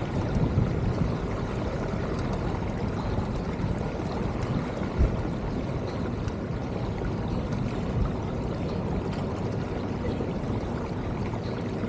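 Steady rushing of water along a sailboat's hull as it sails, with a couple of faint knocks about five and eight seconds in.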